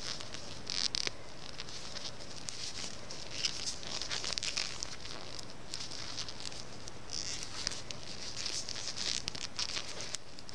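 Knitting on circular needles while binding off: irregular scratchy rustling of yarn sliding over the needles and fingers, with small clicks of the needle tips.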